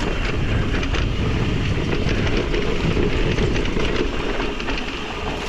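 Wind buffeting the microphone, with tyre noise and quick rattles, from a mountain bike riding fast down a dirt trail. It eases slightly near the end as the bike slows.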